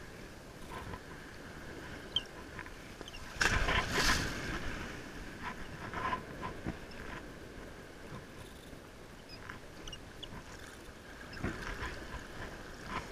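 Surf washing up and draining back on a sandy beach, with a louder rush of water about three and a half seconds in.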